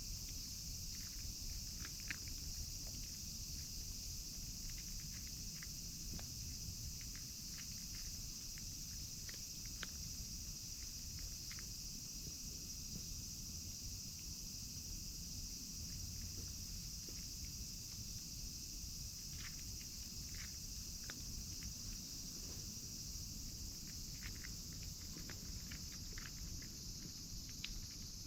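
A steady, high-pitched chorus of crickets and other insects chirring, with scattered soft clicks and a low rumble underneath.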